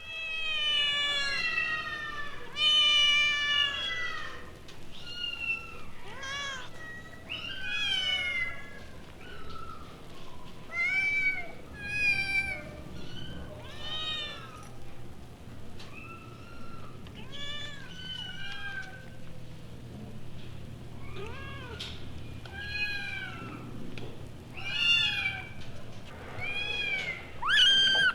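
Cats and kittens meowing, one call after another with some overlapping, the thinner high calls from kittens, over a low steady hum.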